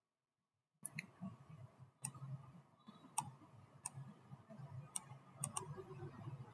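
Faint computer mouse clicks, about nine short sharp clicks at irregular intervals starting just under a second in, over a faint low background hum.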